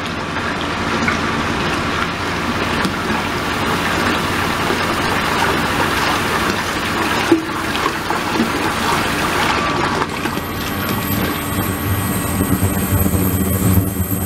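Water from a hose pouring and splashing steadily into a tank of water. A steady high tone and a low hum come in about two-thirds of the way through.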